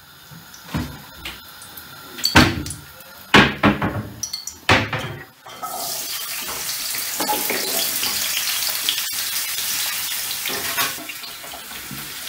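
A few knocks and clatters of pan and bottle. Then, about five and a half seconds in, chopped carrots are tipped into a frying pan of hot oil and start sizzling steadily.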